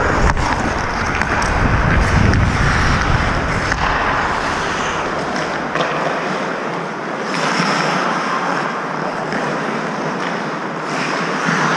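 Wind rushing over a helmet-mounted action camera's microphone as the wearer skates, with the hiss of skate blades on the ice, surging with each stride; the low rumble of the wind fades after about four seconds.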